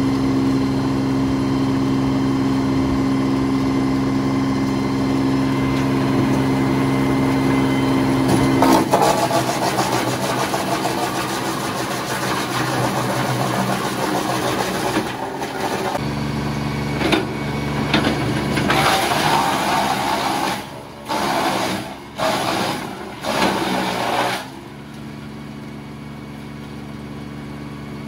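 Hartnett HP62R PTO wood chipper, driven by a tractor, running steadily and then chipping logs and branches. About nine seconds in a long, loud grinding starts as a log is fed through, and later comes a run of shorter chipping bursts with brief lulls between them, before it settles back to a steadier running hum near the end.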